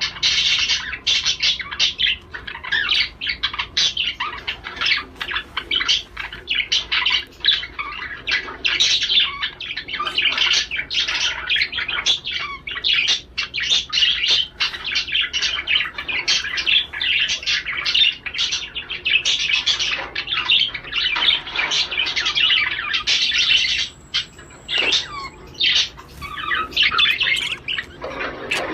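Male budgerigar warbling chatter, a continuous fast stream of chirps, squeaks and warbles: the courtship song of a budgie in breeding mood. There is a brief lull near the end.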